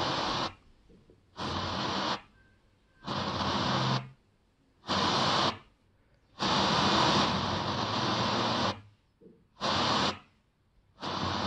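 FM radio tuner giving inter-station static: about seven bursts of even hiss, most under a second and one about two seconds long. Each burst cuts off to silence, as happens when the muting tuner is stepped from frequency to frequency between stations.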